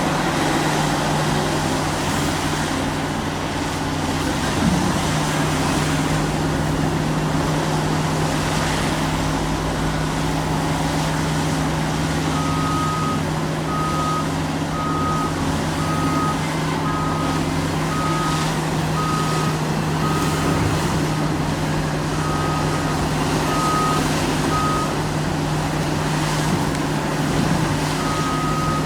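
Heavy diesel construction machinery running steadily. Partway through, a reversing alarm starts beeping about once a second, stops for a few seconds, then sounds again near the end.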